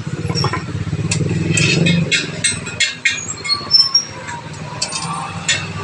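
Repeated sharp metallic clinks of wire spokes and tools being handled during wheel lacing, over a motor vehicle engine running, loudest in the first two seconds.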